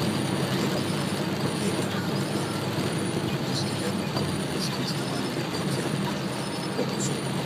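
Steady rain and wet-road noise heard from inside a moving car: rain on the windscreen and body, and tyres hissing on the flooded road, over a low engine and cabin hum.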